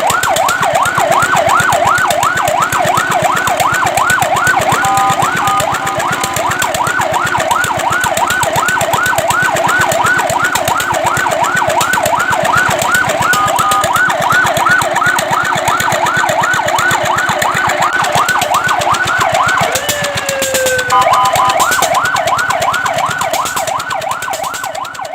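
Fire truck siren on a fast yelp, its pitch rising and falling about four times a second. Brief steady tones break in a few times, the pattern changes briefly near the end, and then it fades out.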